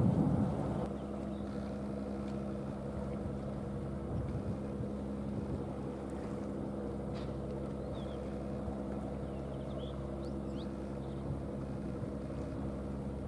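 Steady low drone of marine diesel engines, even in pitch and level throughout, with a few faint high chirps over it.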